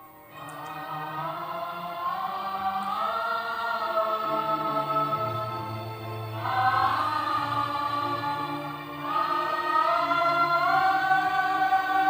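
Music: wordless choir-like voices hold long, slowly gliding notes over a low sustained drone, in phrases of a few seconds each.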